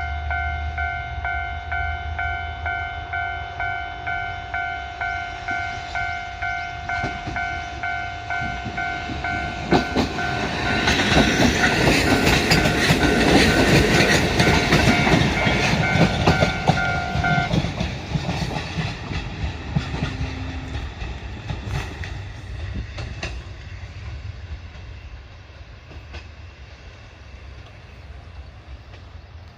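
Level-crossing warning bell ringing in steady repeated dings, about two a second, as a train passes over the crossing. From about ten seconds in, the train's wheels clatter over the rail joints, louder than the bell. The bell stops soon after, and the train sound fades away.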